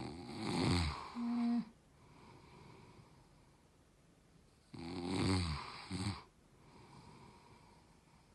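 A man snoring in his sleep: two loud snores about four to five seconds apart, each lasting a second or so, with quieter breathing between them. He is wearing an anti-snoring mouth device, and the snoring carries on through it: the device is not stopping it.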